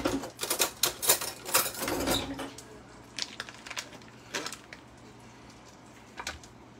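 Cream cheese being unwrapped and handled at the counter: a quick run of light clicks and crinkles for the first couple of seconds, then a few scattered taps.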